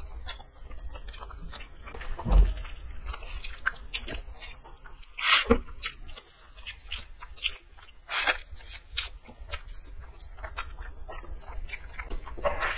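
Two people eating instant noodles straight from their plates without using their hands: close-up chewing and slurping, with many short wet clicks and smacks and a few longer slurps, the loudest about five seconds in.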